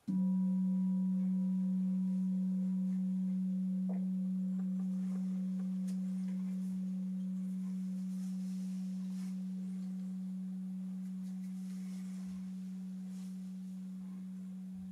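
Large singing bowl struck once with a mallet, ringing with a deep, steady tone that fades slowly, with fainter higher overtones above it; the highest overtone dies away after about four seconds.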